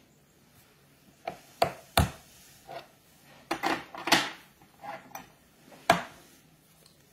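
Handling noise on a hobby workbench: a model locomotive body and small tools being picked up, tapped and set down, giving a string of about nine short knocks and clicks over roughly five seconds.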